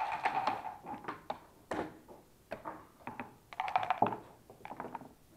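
Backgammon checkers being moved and set down on the board, clacking against the board and each other in a string of sharp clicks, loudest in a cluster about four seconds in.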